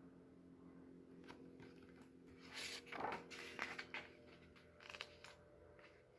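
Paper pages of a large picture book rustling and flapping as they are flipped, a handful of soft swishes starting about two seconds in, over a faint steady hum.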